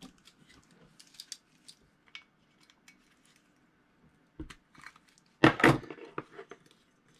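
Light metal clicks and taps of a pair of pliers working on a spinning reel's rotor nut, then a louder metallic clatter about five and a half seconds in as the pliers are put down on the table.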